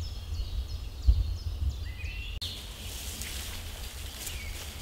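Forest ambience: small birds chirping with short repeated high calls over a low rumble. The background changes abruptly a little over two seconds in, to a brighter hiss with a few faint ticks.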